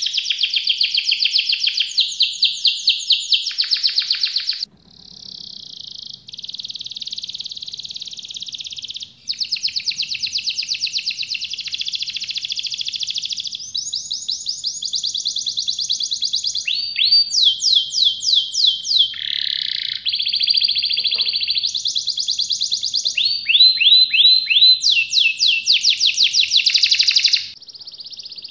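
Domestic canaries singing continuously: long rapid rolling trills alternating with fast series of sharp, sweeping notes, about four a second. The song breaks off and switches abruptly several times.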